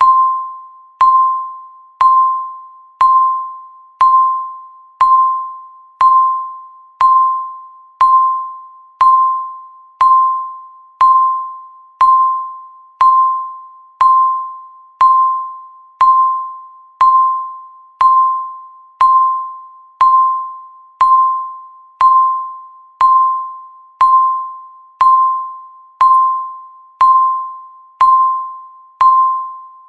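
Electronic countdown-timer tick marking each second: a short, sharp-onset ping at a single mid pitch, once a second, each one fading before the next.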